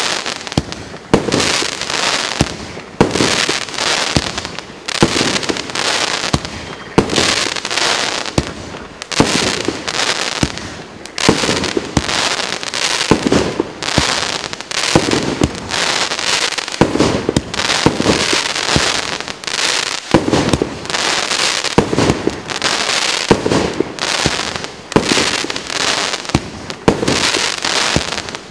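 A 25-shot firework cake with 30 mm tubes firing in steady succession, about one shot a second. Each shot is a sharp report followed by a brief crackling hiss as its gold glitter burst breaks.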